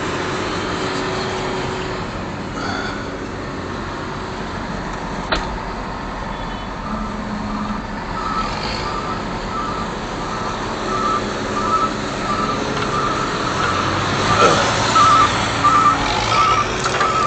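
Case 245 excavator's diesel engine running steadily, with a sharp click about five seconds in. From about halfway on, a backup alarm beeps repeatedly at one pitch.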